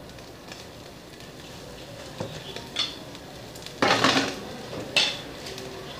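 Short clattering and scraping noises as things are handled at a makeshift stone charcoal grill. The loudest is a half-second scrape about four seconds in, followed by a sharp clink about a second later.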